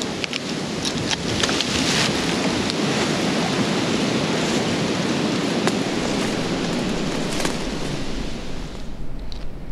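Close rustling and scraping of clothing and gear rubbing against the microphone, with scattered clicks and knocks, as a hunter straps a climbing stick to a tree and climbs up it; the noise dies down about nine seconds in.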